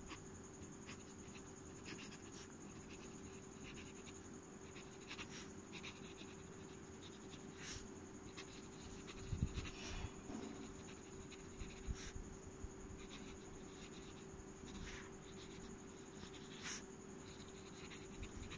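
Fountain pen nib scratching across lined paper as words are written, in faint, irregular short strokes, with a soft thump about halfway through.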